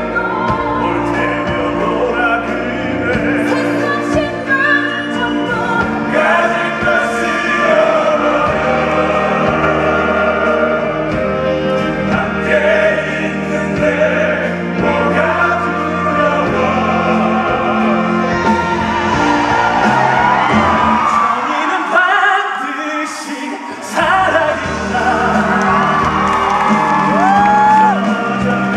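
A male lead singing a musical theatre song live on stage, through a headset microphone, over instrumental accompaniment. Near the end the low accompaniment drops out for about two seconds.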